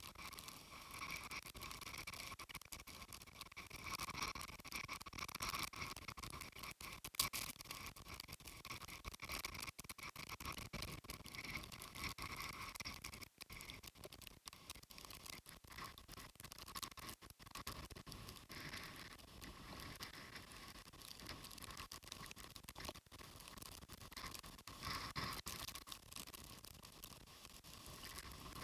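Typhoon wind and rain buffeting the camera: a steady rushing noise with raindrops crackling and pattering on the microphone, and one sharp tap about seven seconds in.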